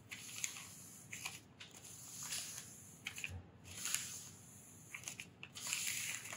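Folded newsprint rubbed lightly over an inked copper etching plate, a faint papery scrubbing and rustling in uneven short strokes about once a second, as the surface ink is wiped off the plate.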